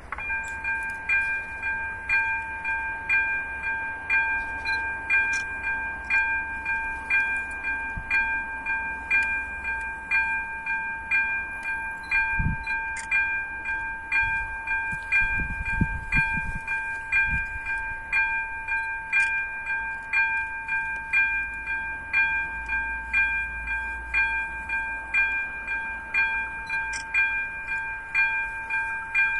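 ZV02 warning bell of a Czech level crossing starts ringing and keeps up an even, repeated ringing at about two strikes a second. It is the crossing's warning activating for an approaching train.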